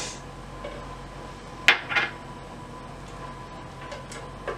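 Utensils clinking and knocking against a skillet as butter is scraped into it and pushed around with a spatula: two sharp knocks close together about a second and a half in, and another near the end.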